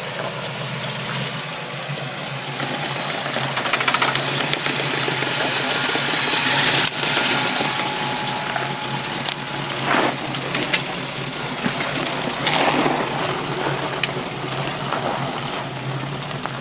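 4x4 off-road vehicle's engine running with a steady drone, with rattles and occasional sharp knocks from the vehicle working over rough ground.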